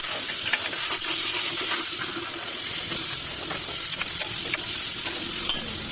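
A loud, steady hiss that starts and cuts off abruptly.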